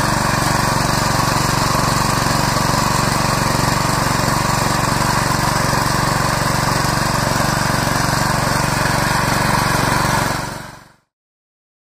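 GeoTech PGT 700 tiller's 7 hp four-stroke petrol engine running steadily under load while its tines churn the soil. The sound fades out near the end.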